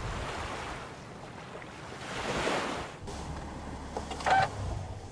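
A whoosh that swells and fades, peaking about halfway, as the intro logo transition plays. Near the end a faint low hum with a few clicks and a short tone comes as a finger presses a pickup truck's push-button start.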